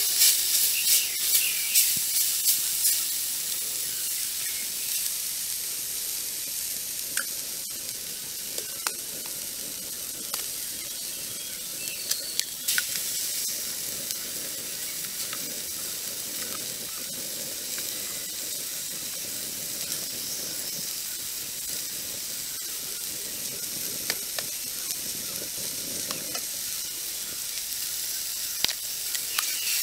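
Chopped greens frying in a hot metal wok: a spatula stirring with quick repeated strokes for the first few seconds, then a steady sizzle. A few sharp clicks come along the way as chicken eggs are cracked into the pan, one near the end.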